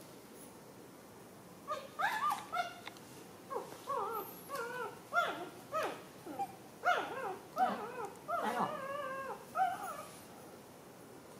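A young animal whimpering: a quick string of short, high, rising-and-falling squeals that starts about two seconds in and stops near the end.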